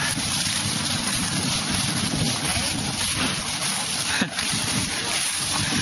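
Wind buffeting the camera microphone: a steady rush of noise.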